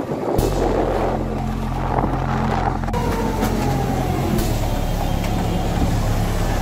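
City bus engine running close by, a steady low drone that comes in suddenly just after the start, with a whine that slowly falls in pitch from about three seconds in.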